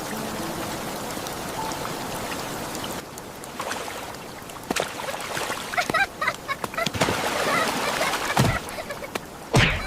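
Steady rain hiss for about three seconds, then the rain drops lower and a run of clicks, knocks and short high chirps follows, with two louder thumps near the end.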